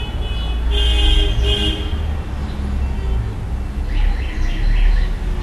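Steady low rumble of background traffic, with a short horn-like tone about a second in and a quick run of bird-like chirps about four seconds in.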